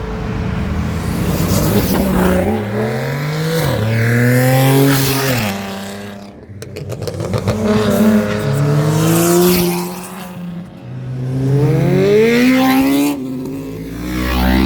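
Cars accelerating hard past the listener, engines revving up through the gears: the pitch climbs and drops back at each upshift, in several loud runs with short lulls between them.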